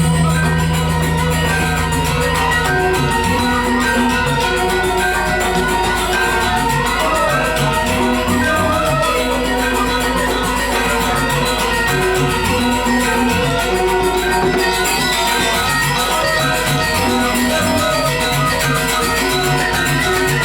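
Balinese gamelan music accompanying the dance: metallophones playing dense, steady figures over a regular low pulse, with a deep held tone in the first three seconds.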